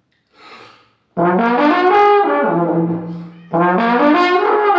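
Trombone played twice in the 'airplane' warm-up: each time it starts on a low note and slurs upward, then comes back down. A short breath comes before the first.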